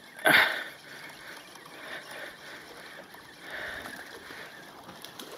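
Wind on the microphone and small waves lapping at the shoreline, a steady rushing noise that swells gently now and then, with a short louder rush of noise right at the start.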